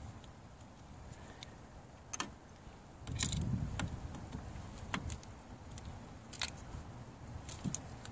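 Screwdriver working the Torx screws of a 2013 VW Passat TDI's diesel fuel filter housing: a few faint scattered metallic clicks and ticks of the bit and screws, with a low rumble for about a second around three seconds in.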